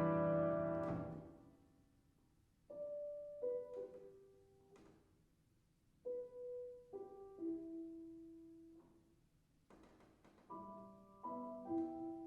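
Piano playing slowly: a loud chord rings out and dies away, then three quiet phrases of a few notes each, each stepping down in pitch, with pauses between them.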